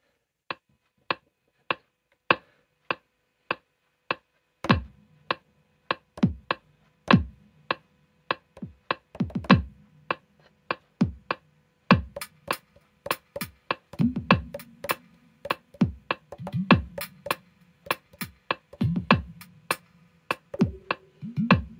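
MPC One metronome clicking at 100 BPM, then Roland TR-6S drum machine sounds, triggered over MIDI, joining in as a pattern is recorded. First low kick drums with a falling pitch, then a denser looping beat with higher, sharper hits.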